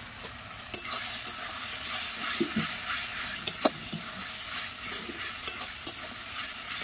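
Spice paste frying down in oil in a metal karahi (kosha), sizzling steadily while a metal spatula stirs and scrapes it. There are sharp clicks of the spatula against the pan. The sizzle grows louder when the stirring starts, about a second in.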